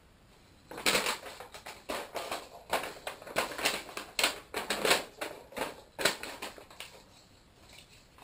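Paper leaflets being folded and handled, rustling and crinkling irregularly from about a second in, dying down a couple of seconds before the end.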